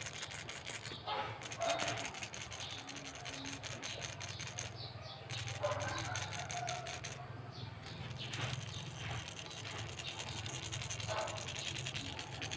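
Hard-plastic fishing lure shaken by hand, the small steel bearing balls fitted inside as rattles clattering rapidly back and forth.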